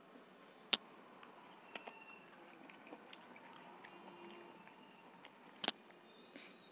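A steel fork clicking sharply against a steel plate while eating noodles, twice: about a second in and again near the end. Faint small ticks of eating between them.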